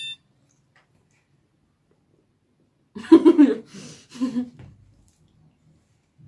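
A quiet pause while chewing, then about three seconds in a short muffled chuckle through a full mouth with a breathy exhale, repeated briefly.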